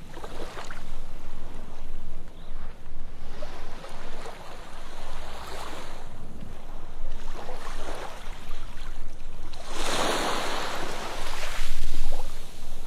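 Ocean surf washing up a sandy beach in repeated swells, the loudest wave breaking about ten seconds in.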